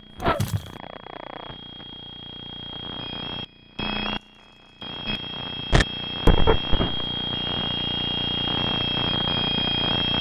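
Electronic glitch and static sound effect: a steady high whine over hissing static that grows louder, cutting out for a moment twice near the middle, with a few sharp hits.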